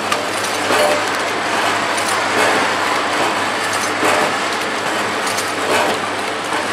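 LT-240A vertical form-fill-seal sachet packing machine running a trial on freshly threaded film: a steady mechanical hum with repeated clacks as it pulls film and heat-seals bags.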